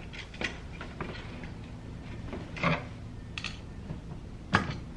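Light metallic clicks and knocks from a high-pressure fuel pump being handled and taken apart by hand, a few scattered taps with a sharper click just before the end.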